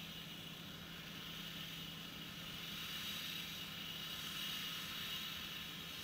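Claas Mercator combine harvester running steadily while harvesting: a constant low hum under an even mechanical hiss, a little louder in the second half.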